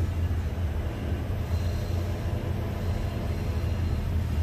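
Steady low rumble of idling cars and road traffic stopped at a railroad crossing.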